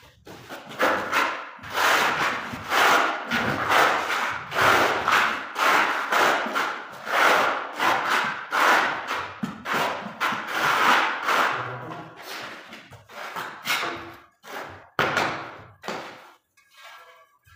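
Notched steel trowel scraping and combing tile adhesive across a concrete floor, a rhythmic run of rasping strokes about three every two seconds, thinning out to shorter, sparser scrapes near the end.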